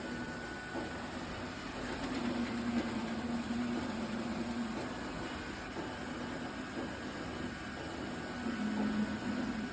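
iRobot Roomba Combo robot vacuum running: a steady motor hum with a low tone that swells louder for a few seconds and again near the end.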